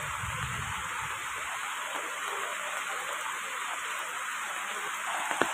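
Steady hiss of rain falling on foliage and muddy floodwater. A low rumble runs for about the first second and a half, and there is a single sharp tap near the end.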